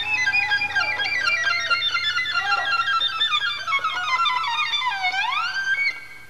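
Violin solo playing fast runs of notes, then a long slide down in pitch and back up about five seconds in, after which the playing stops.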